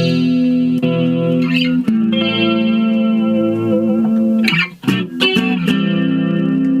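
Yamaha SE350H electric guitar played through a small Roland Micro Cube amp: chords ringing out and changing about two seconds in. There is a brief muted scratch and break about two-thirds of the way through, then the chords ring on.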